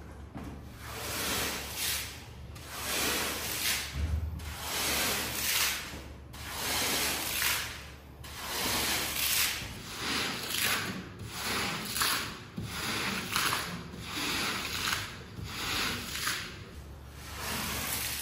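A cleaning tool worked over a shaggy rug in repeated rubbing strokes, about one a second.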